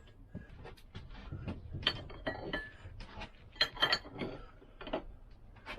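Metal tools and parts clinking and clattering on a workbench as they are handled and moved about, a run of irregular knocks with a few short metallic rings.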